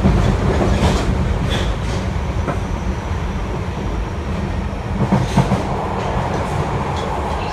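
Running noise inside an Osaka Metro 30000 series subway car with Hitachi IGBT traction equipment: a steady low rumble of wheels on rail with a few sharp clicks, easing off slowly as the train slows into a station.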